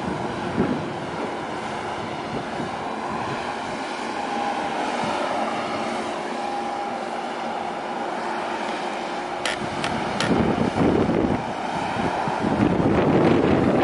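Wind buffeting the microphone over a steady hum and the wash of water. Three short, high clicks come a little after halfway, followed by heavier gusts in the last few seconds.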